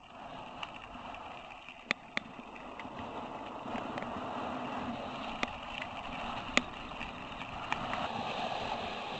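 Mountain bike rolling along a gravel dirt track: a steady rush of tyre and wind noise, with a handful of sharp clicks and rattles from stones and the bike, the loudest about two and six and a half seconds in.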